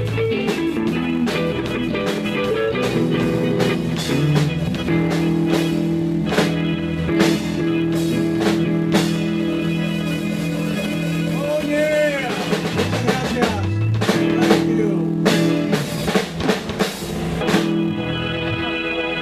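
Live band playing: electric guitars over bass guitar and a drum kit, with a steady beat of drum hits.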